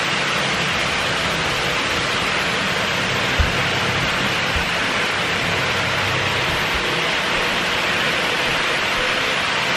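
HO and N gauge model trains running on their tracks: a steady whirring rumble of motors and wheels on rail, with a brief low thump about three and a half seconds in.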